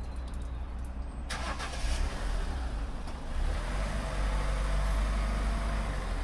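Car engine starting up about a second in, then running steadily as the car rolls forward out of the wash bay.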